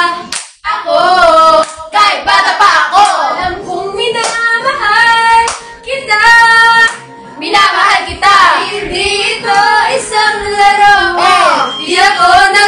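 A small group of young women singing together loudly, with hand clapping.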